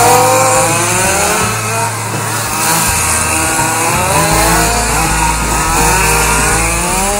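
Several 1/4-scale RC race cars' Zenoah 270RC two-stroke petrol engines revving together. Their overlapping pitches keep rising and falling as the cars pass through a corner.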